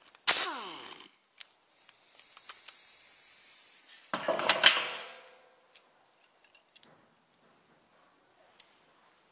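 Power wrench, likely air-driven, undoing the bolts of a gearbox's selector-spring retainer plate. A short burst comes about a quarter second in, winding down in pitch, then a steady high hiss and a second burst around four seconds in. Light metal clicks follow as the plate and springs are handled.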